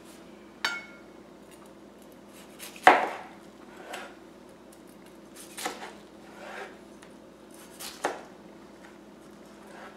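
Kitchen knife slicing through a deep-fried, breadcrumb-crusted sushi roll on a cutting board: about six separate crunching cuts and knocks of the blade, the loudest about three seconds in. Under a second in there is a short click with a brief ring.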